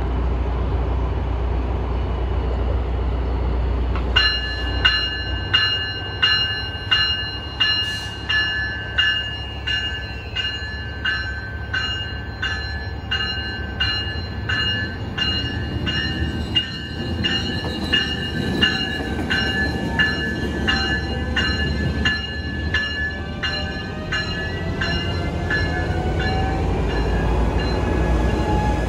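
Siemens Charger diesel locomotive on an Amtrak Pacific Surfliner train, its bell ringing steadily at about two strokes a second from about four seconds in, over the low rumble of its engine. Near the end a faint whine rises in pitch as the locomotive starts moving.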